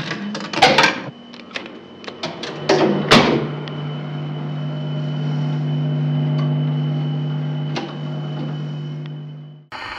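Jukebox mechanism sound effect: a run of sharp mechanical clicks and clunks over the first three seconds, then the jukebox motor hums steadily, swelling and fading before it cuts off just before the end, where a hiss takes over.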